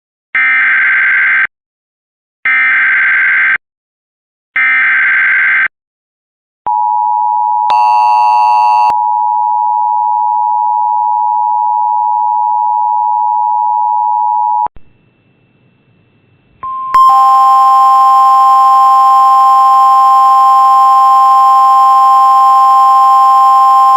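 Emergency Alert System broadcast signal. It opens with three identical screeching data bursts, each about a second long (the digital SAME header), then a steady single alert tone for about eight seconds. After a short pause a louder, harsher multi-tone attention signal starts and runs on.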